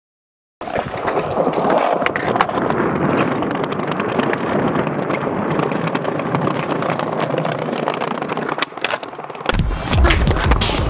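Skateboard wheels rolling on concrete with a steady gritty rumble, broken by scattered sharp clicks and knocks of the board. Near the end a deep bass sound comes in.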